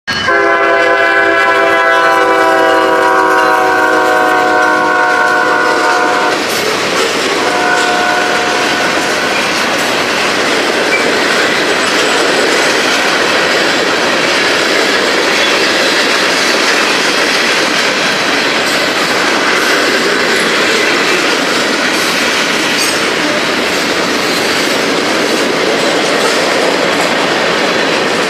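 Freight train horn sounding one long chord of about six seconds and then a short one. After it comes the steady noise of freight cars rolling past, wheels clacking over the rail joints.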